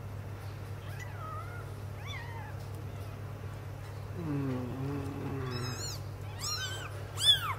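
Six-day-old kittens mewing as they are handled: a few faint high cries early on, then a quick run of loud, high-pitched squeaky cries near the end, each rising and falling in pitch.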